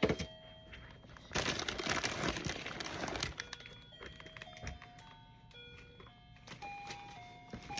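A simple electronic melody plays in plain, stepped beeping notes. Paper rustles and crinkles briefly at the start and again between about one and a half and three seconds in.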